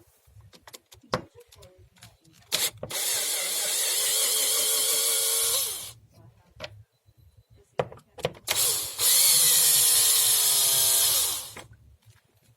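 Power drill with a Torx 30 socket bit backing screws out: two runs of about three seconds each, the motor whine falling away at the end of each run, with a few short clicks between.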